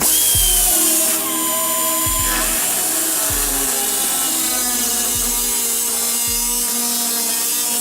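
Power cutting tool slicing into the sheet-steel front fender of a Mazda Miata, a loud hiss with a whine that sags and shifts in pitch as it bites, starting abruptly.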